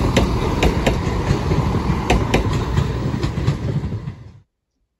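An East Midlands Railway Regional diesel multiple unit passing at speed: a heavy rumble of wheels on rails with sharp clicks, some in close pairs, as the wheels cross rail joints. It fades as the train draws away, then cuts off suddenly near the end.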